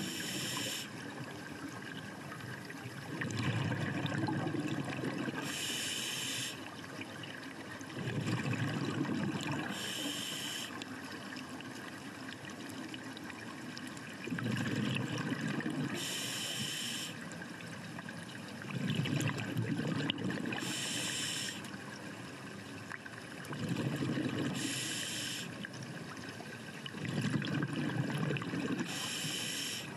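Scuba diver breathing through a regulator underwater: a short hiss on each inhalation, then a longer burble of exhaled bubbles, repeating about every four to five seconds.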